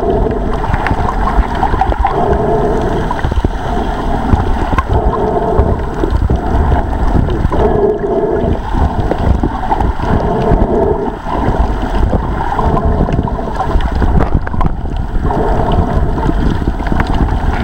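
Muffled rumble and swash of seawater around an action camera held in the sea while snorkeling. Soft swells recur every second or two.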